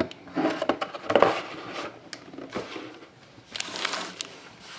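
Trading card packs and cards being handled: foil wrappers crinkling in a few short bursts, with soft clicks and taps between.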